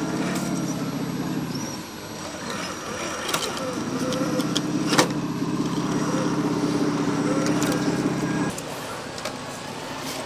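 Radio-controlled model vehicle running with a steady engine-like drone. It runs for about two seconds, stops, then starts again with a slight rise and holds for about five seconds. A sharp click comes partway through the second run.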